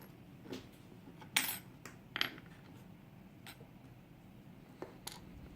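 A handful of small, sharp metallic clicks and clinks, spaced irregularly, from lock pins, springs and other small parts being handled as a pin-tumbler lock is taken apart; the loudest comes about a second and a half in.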